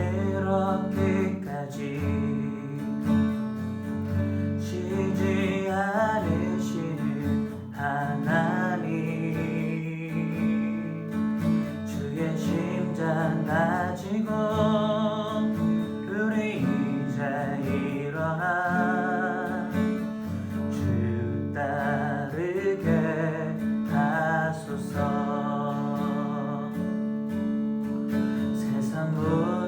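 Acoustic guitar playing an instrumental passage of a worship song: strummed chords under a melody line whose notes bend and waver.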